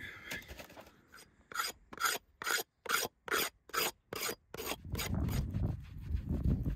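A knife blade scraping the top of a wooden chopping block in short strokes, about two a second. Near the end the strokes give way to a steadier, lower rubbing scrape.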